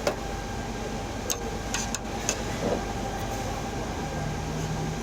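Steady background din of a busy eatery with a constant hum, broken by several short sharp clicks or clinks.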